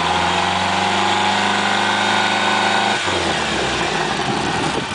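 Bayliner 175's sterndrive engine idling steadily while fed cooling water from a garden hose, then shutting off about three seconds in. The splash of the hose water carries on after it stops.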